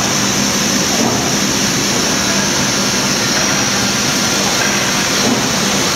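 Single facer corrugator running steadily while it feeds out single-faced corrugated board. The noise is constant, a low hum under a strong high hiss, with no change in level.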